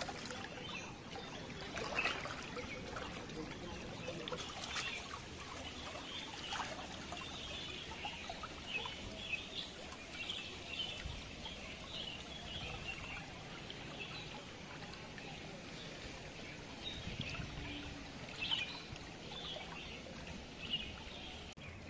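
Floodwater flowing and trickling, with birds chirping throughout and a few short knocks.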